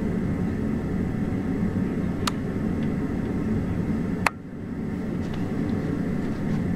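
Steady low rumble of the four jet engines of the Boeing 747 Shuttle Carrier Aircraft flying past with the Space Shuttle Discovery on its back. A sharp click comes a little after four seconds, and the rumble briefly drops after it.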